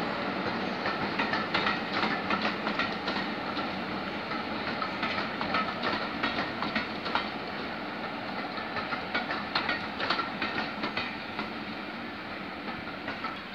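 A train of passenger coaches hauled by a Class 33 diesel locomotive runs past. Its wheels click irregularly over the rail joints under a steady rolling rumble that fades slowly toward the end.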